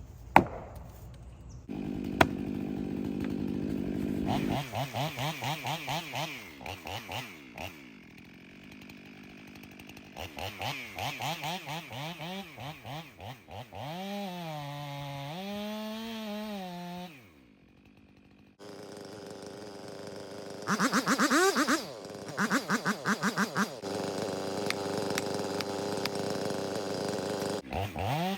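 Chainsaw running and cutting into a large dead tree, its engine revving up and down again and again between idle and full throttle. A couple of sharp clicks come in the first few seconds, and the saw drops out for about a second and a half some two-thirds of the way through.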